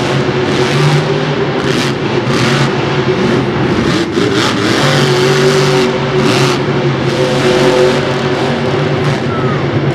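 Monster truck's supercharged V8 engine running loud under heavy throttle, revving in repeated bursts through a freestyle run.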